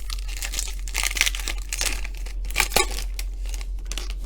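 Foil wrapper of a 2020 Panini Absolute Football card pack being torn open and crinkled, with sharper crackles about a second in and again near three seconds.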